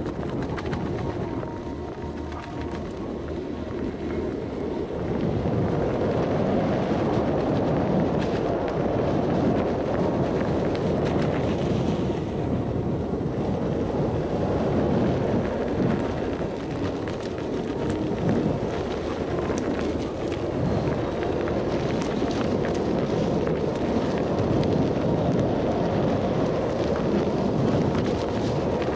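Wind buffeting the microphone while riding an electric unicycle, a rough steady rumble that gets louder about five seconds in.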